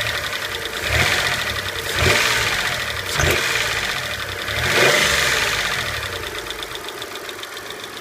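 Dodge Stealth's V6 engine blipped up in revs four times, each time falling back, then settling toward idle. The engine has a lifter tick from hydraulic lifters that are not pumping up, which the owner is trying to quiet with STP oil treatment.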